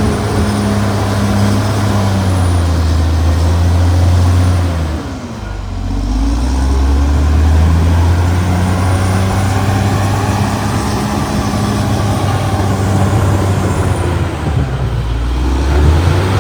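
CAT D6R XL bulldozer's diesel engine running hard, its pitch sagging and climbing back twice, about five seconds in and again near the end, as the load on it changes.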